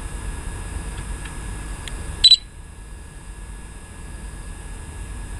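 Steady low hum inside a parked car. About two seconds in, one short, sharp electronic beep cuts through it.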